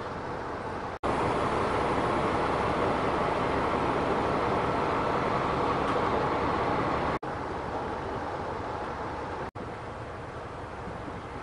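DB class 218 diesel locomotive's engine running close by, a steady loud mechanical noise. Abrupt cuts break the sound twice, and the last couple of seconds are a quieter, more distant railway rumble.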